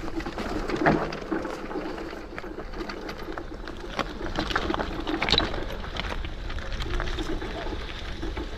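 Electric motor of a FEDDZ PF1 electric off-road bike whining steadily under way, with knocks and rattles from the bike running over a rough trail and some wind rumble on the action-camera microphone.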